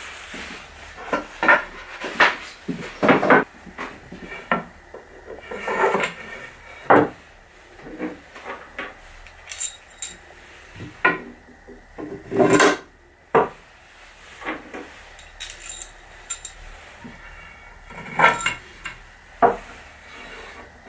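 Wooden clamp rails knocking and sliding on a wooden workbench, and small metal pins and bolts clinking as they are handled and pushed into the drilled holes. Irregular knocks and clicks, a few with a short metallic ring.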